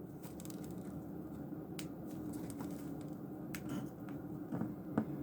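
A few faint, scattered light clicks and taps over a steady low hum.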